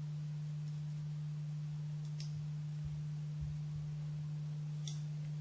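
A steady low hum, a single unchanging tone, with two faint small clicks about two seconds in and near the end as the plastic wire manager is fitted over the cable cores.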